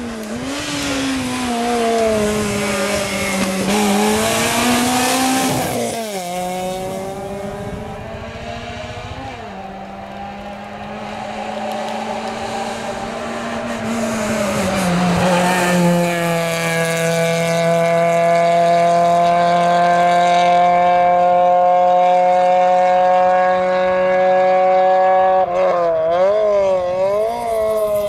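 Fiat Seicento race car's four-cylinder engine revving hard through the gears, its pitch climbing and dropping back at gear changes several times, then held high and steady for about ten seconds. Near the end the revs waver quickly up and down as the car weaves between cones.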